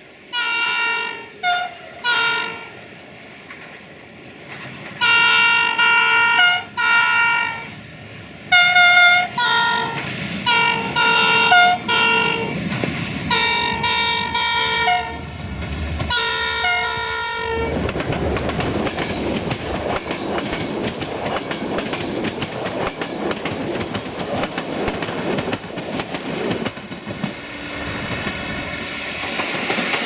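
CFR Class 64 'GM' diesel-electric locomotive sounding its multi-note horn in a long series of short and longer blasts as it approaches. The locomotive and its passenger coaches then pass close by, with the wheels clattering over the rail joints for the rest.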